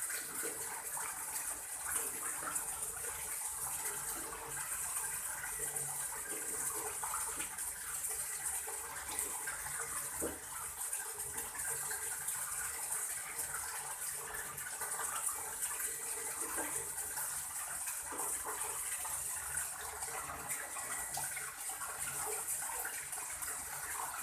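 Water running and pouring steadily, with a fine crackle of spray, as when an animal is being bathed.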